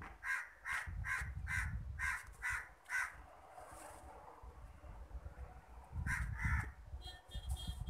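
Crow cawing: a quick run of about seven harsh caws in the first three seconds, then two more about six seconds in. A few higher, shorter bird calls come near the end.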